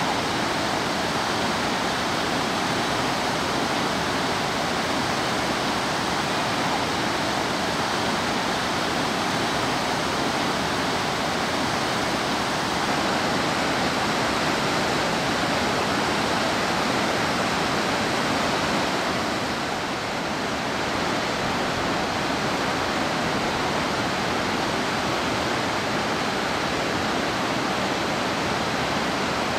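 Mountain river rapids rushing over boulders: a steady, even rush of whitewater.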